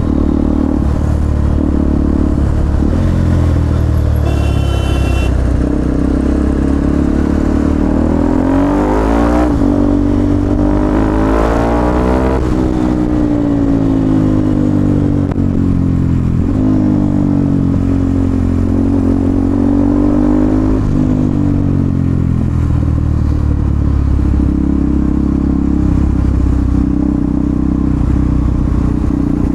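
KTM 390 Duke's single-cylinder engine running on the move, its revs rising and falling through the gears about eight to thirteen seconds in and again around sixteen to twenty-one seconds. A brief high steady tone sounds about four seconds in.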